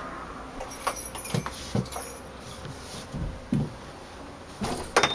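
Handling and movement noises: scattered knocks and clicks as things on a shelf are touched, with a brief light jingle about a second in and a sharper clatter of clicks near the end.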